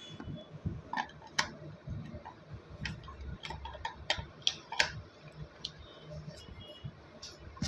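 Irregular clicks, taps and scrapes of a light bulb being handled and screwed into the shade of a table lamp, some clicks with a brief ringing.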